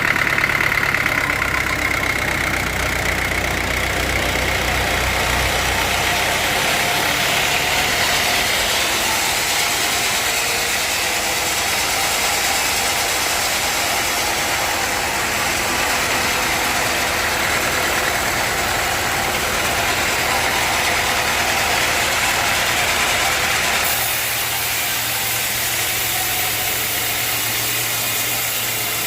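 Sawmill running with a loud, steady machine noise; its sound changes near the end.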